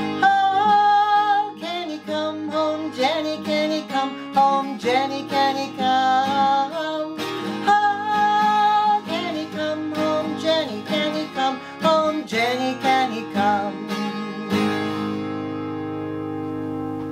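Taylor twelve-string acoustic guitar strummed under a woman's singing voice. Near the end the singing stops and a last chord rings out and fades.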